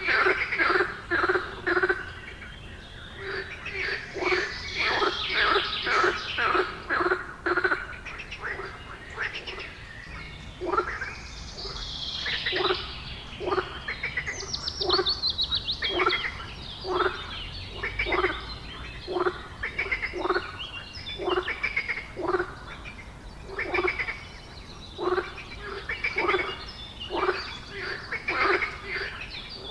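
Animal calls repeating steadily, about one to two a second, each a short rattling note, with some higher sweeping calls in the middle.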